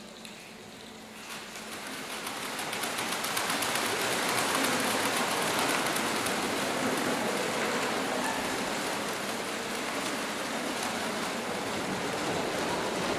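Audience applauding, swelling over the first few seconds and then holding steady.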